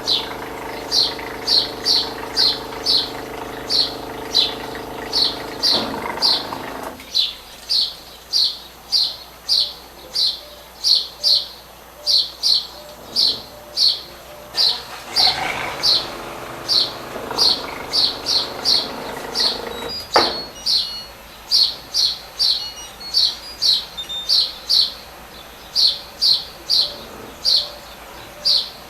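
A small bird chirping steadily, short high chirps about twice a second. For the first seven seconds a steady hum with a buzz runs under it, which stops abruptly: the washing machine's water inlet noise under test. A single click comes about twenty seconds in.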